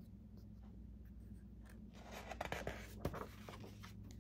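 A picture-book page being turned: a short papery rustle with a few crisp clicks about halfway through, over a faint low hum.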